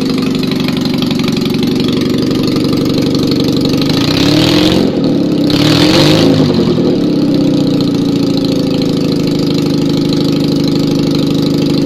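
Citroën 2CV air-cooled flat-twin engine, bored out to 652cc, running loudly with no exhaust fitted on its first start after a rebuild. It runs steadily, picks up revs briefly about four seconds in, then settles back to a steady run.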